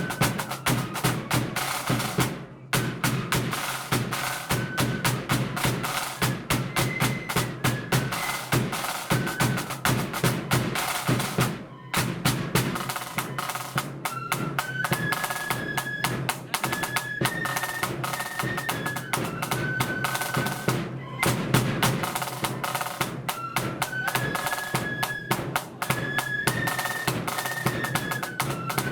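Blood-and-thunder marching flute band playing: a high flute melody over snare drum rolls and heavy bass drum beats, with three brief breaks in the sound.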